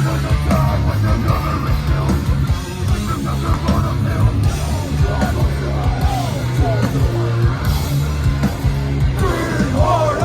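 A heavy band playing live: distorted guitars and bass with pounding drums, under a yelled vocal.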